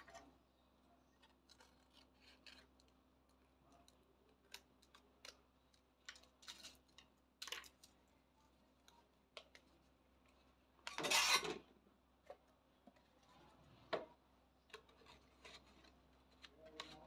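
Stiff craft paper being handled: faint rustling and light clicks as a rolled paper cone is turned and pressed, with one louder, brief scraping rustle about eleven seconds in.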